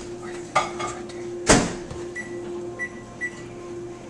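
Two sharp knocks, about half a second and a second and a half in, the second the louder, over a steady low hum.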